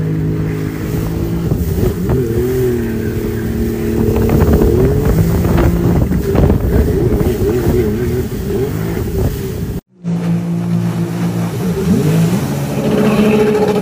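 Jet ski engine running and revving up and down in pitch under a steady rush of water. About ten seconds in, the sound cuts out for an instant and a jet ski is heard running again, rising in pitch near the end.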